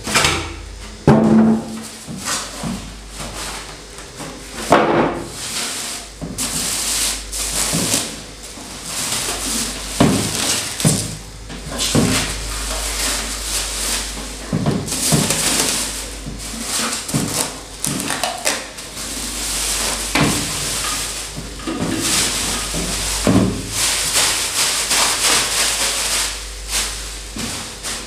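Plastic wrapping crinkling and rustling while a metal PC case is handled, with several knocks and thunks as it is pulled from its foam packing and box and set down on a table.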